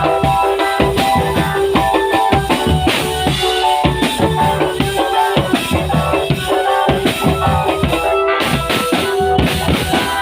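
Loud music: fast, dense drumming with bass and snare drums under a melody of held notes.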